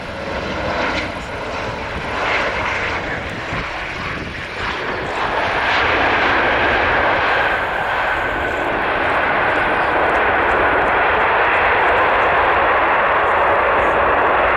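Boeing 747-8F freighter's four GEnx turbofans on its landing roll just after touchdown. About five seconds in, the engine sound grows into a loud, steady roar, as with reverse thrust slowing the aircraft.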